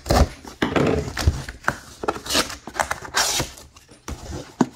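A cardboard shipping case being opened: packing tape slit along the seam with a small cutter and the cardboard flaps pulled apart. It comes as a run of irregular clicks and knocks with short rustling tears, two of them longer scrapes near the middle.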